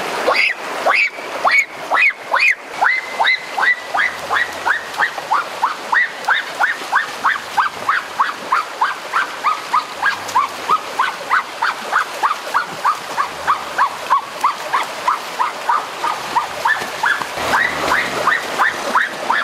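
A bird calling over and over in a steady run of short falling notes, about two to three a second.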